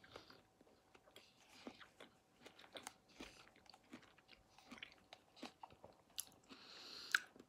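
Faint, close-up mouth sounds of a person biting and chewing food: soft irregular clicks and smacks, with a short breathy sound near the end.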